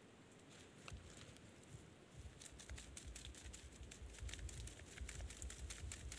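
Faint, rapid, irregular clicking and crackling from mud crabs being handled against a wire-mesh crab trap, growing denser from about two seconds in, over a low rumble.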